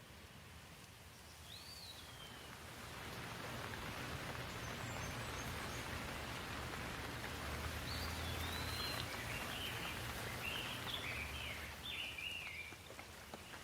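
Steady rain falling, swelling over the first few seconds and easing slightly near the end. A bird chirps once near the start and then in a run of short chirps through the second half.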